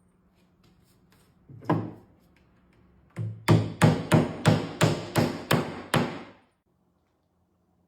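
Hammer driving roofing nails, likely fastening metal drip edge along the roof eave. A single blow comes first, then a quick run of about nine blows at roughly three a second.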